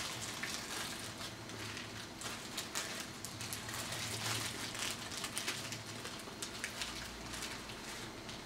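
Small plastic jumper shunts clicking and pattering as they are picked through by hand, a few light clicks a second.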